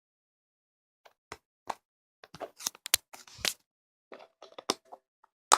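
Slime being handled: a run of short, irregular pops and clicks with silent gaps between them, the loudest one near the end.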